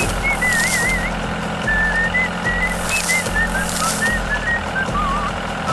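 A whistled tune of short, stepping notes, some wavering, over a steady low hum, with two swells of hiss about a second and three seconds in.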